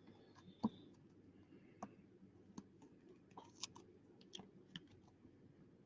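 Trading cards being handled during a pack break: faint, scattered clicks and taps, the loudest about half a second in.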